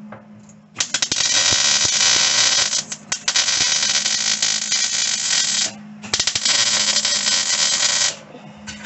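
Arc welding on a 1985 Ford Ranger's steel cab floor: the arc crackles steadily for about five seconds, stops briefly, runs again for about two seconds, then strikes once more briefly near the end. A steady low hum from the welder runs underneath.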